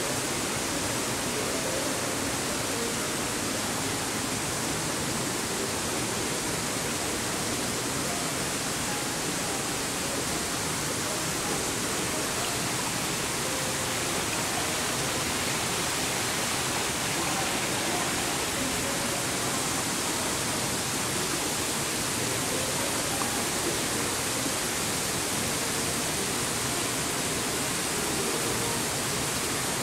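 Steady, even rushing hiss of water from a small waterfall.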